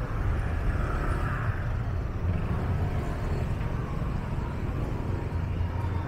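Steady road traffic noise: vehicle engines running close by, a low constant rumble with a little more mid-range noise about a second in.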